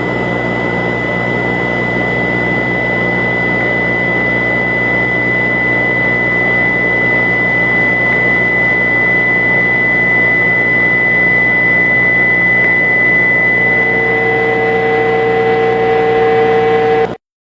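A loud, steady rushing drone with a constant high whine through it. About 14 seconds in, two steady lower tones join, and the whole sound cuts off suddenly just before the end.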